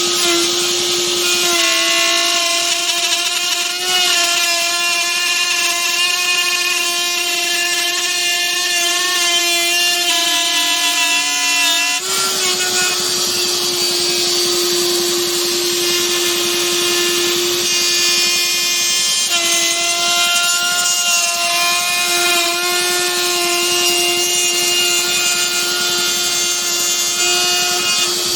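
Table-mounted wood router running at high speed with a steady high whine while its bit cuts grooves in wood, over a bright hiss of cutting. The pitch sags slowly under load about ten seconds in and jumps back up about two seconds later.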